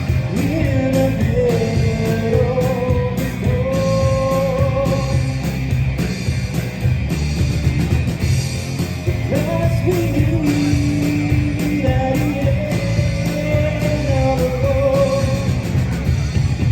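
Live rock band playing a song: a male lead voice singing over electric guitar, bass guitar and drum kit. The singing comes in two phrases with an instrumental stretch between them.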